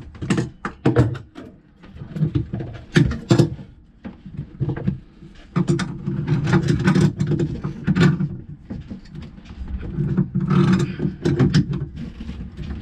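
Knocks and clanks of hand tools and a bronze seacock being screwed onto a thru-hull inside a sailboat's cramped bilge locker, several sharp ones in quick succession early on. About halfway a low, steady rumble comes in under further knocks.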